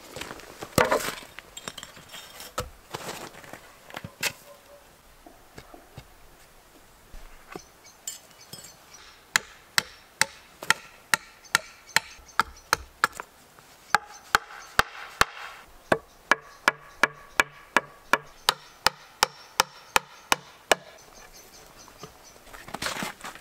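Hatchet chopping into a peeled log in a steady run of sharp blows, about two or three a second, with a short pause partway through. Footsteps crunch on snow near the start.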